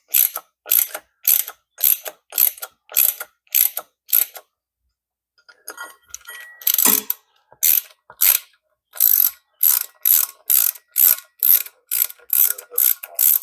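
Hand ratchet wrench clicking in steady back-and-forth strokes, about two a second, as bolts are run into the ATV's secondary clutch, pushing its back plate in against the clutch spring. The ratcheting stops for a couple of seconds near the middle, with a few light clicks and a single knock, then picks up again.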